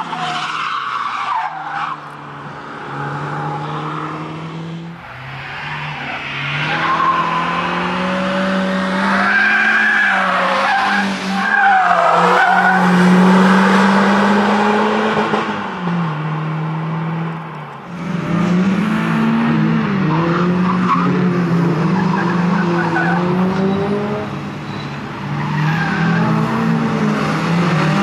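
Peugeot 306 rally car driven hard through tight corners: the engine revs rise and fall with gear changes, and the tyres squeal. After an abrupt change about two-thirds of the way in, the engine is heard revving up and down repeatedly.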